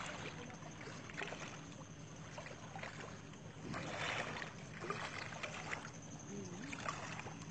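Small river waves lapping and washing against the shore, in irregular surges every second or two.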